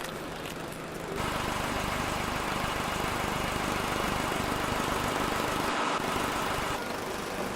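An engine running steadily. It comes in louder about a second in and eases slightly near the end.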